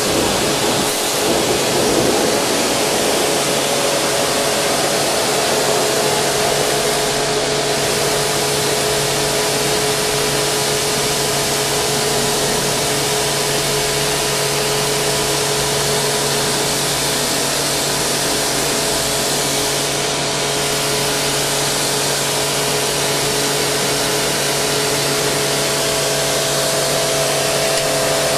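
NESCO high-pressure washer spraying continuously: a loud, steady hiss of the water jet with a steady hum underneath.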